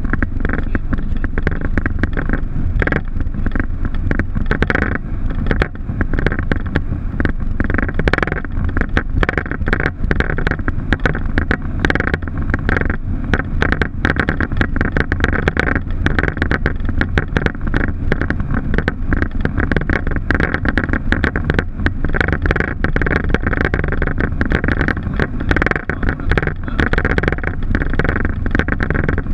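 Boeing 737 flight-deck noise: the engines and airflow make a steady, loud rumble and rush, with dense irregular rattling and knocking throughout.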